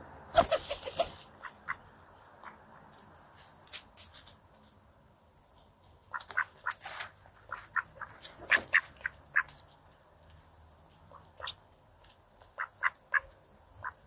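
Mallards feeding on bread close by, with clusters of short quacks and quick pecking sounds. The loudest burst comes about half a second in.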